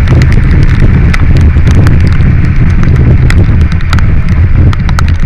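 Riding noise from a motorcycle in the rain: heavy wind buffeting and the bike's low rumble on the camera microphone, with irregular sharp ticks of raindrops hitting the camera.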